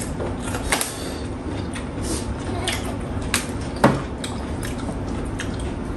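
Light clicks and knocks of dishes and utensils during a meal, over a steady low hum, with two sharper knocks, one about a second in and one near the four-second mark.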